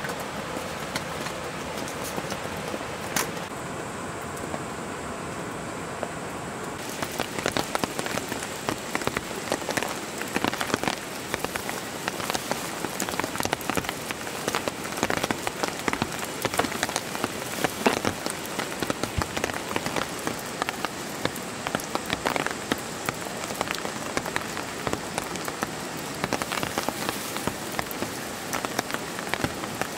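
Steady rain with many separate drops tapping on a surface. The drops grow denser and louder about seven seconds in.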